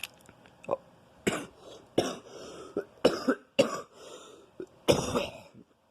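A person coughing in a fit of about seven short, harsh coughs with short gaps between them: a chesty cough from bronchitis.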